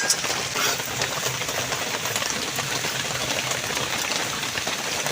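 Steady sizzling of food frying in oil in a pan, with a few faint clicks.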